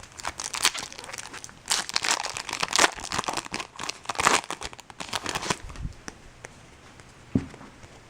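Foil wrapper of a 2012 Bowman Chrome baseball card pack crinkling and tearing as the pack is opened, for about five and a half seconds, then a single soft knock.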